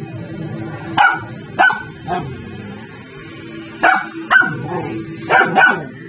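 A young dog barking in short, sharp barks, about seven, mostly in quick pairs, at another dog it is upset with. Steady background music plays under the barks.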